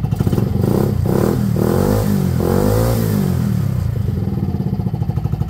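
Benelli Velvet scooter's single-cylinder engine running: it is revved up and down with the throttle a few times from about half a second to three seconds in, then settles back to a pulsing idle.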